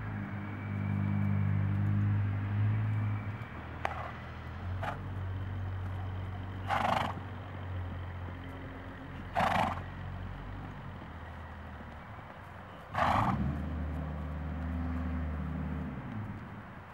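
A horse being ridden at a walk snorts three times, short sharp blows through the nostrils a few seconds apart, the loudest sounds here. A low steady drone sounds under it at the start and again near the end.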